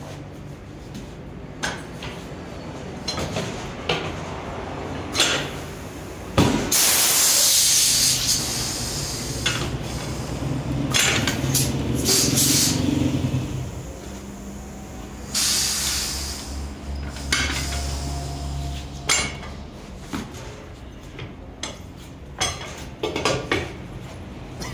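Pneumatic tyre changer at work: loud bursts of compressed-air hiss from its cylinders about six seconds in and again about fifteen seconds in, a low hum through the middle, and scattered knocks of the steel wheel and tools against the machine.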